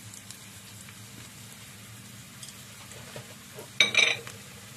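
Chopped shallots and garlic sizzling faintly in hot oil in a frying pan, with a few light taps and a short, loud, ringing clink about four seconds in.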